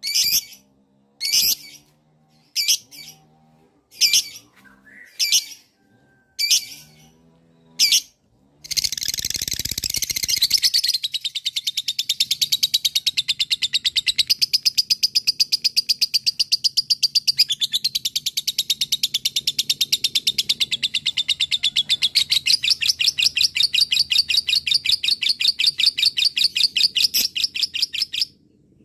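A lovebird giving several short, shrill chirps about a second apart, then breaking into one long, rapid chattering trill of quickly repeated high notes lasting nearly twenty seconds: the long 'ngekek' that keepers prize in a lovebird in full song.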